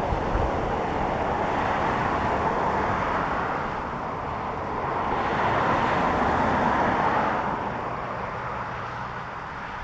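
Hexacopter motors and propellers whirring with a rush of air, swelling twice and easing off near the end.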